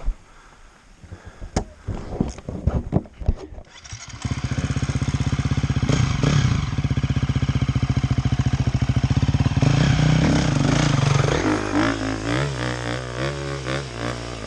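Enduro motorcycle engine: a few sharp knocks, then it catches about four seconds in and runs steadily and loudly. In the last few seconds the revs rise and fall.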